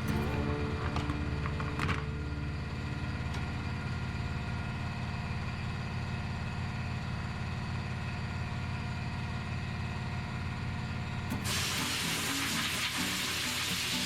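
Compressed air hissing loudly for about two and a half seconds near the end, at a tyre changer, over a steady low machine hum.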